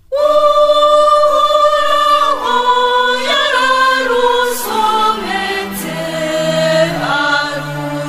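A choir singing slow, sustained chords as background music, entering suddenly right at the start.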